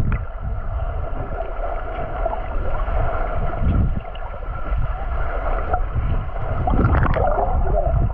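Muffled underwater sound from a camera held in the sea: a steady low rumble and gurgle of water with a faint hum, and a few short clicks.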